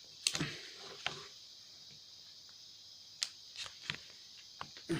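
Scattered clicks and short scrapes of a screwdriver prying at the seam of a plastic laptop battery pack case, a few irregular sharp ticks with quieter stretches between.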